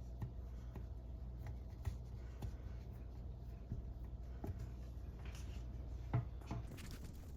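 Faint, scattered small clicks and rubbing from sink plumbing parts being handled and fitted, over a steady low hum.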